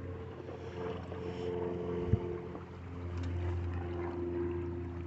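A steady low drone with several steady pitched tones, engine-like, and one short low thump about two seconds in.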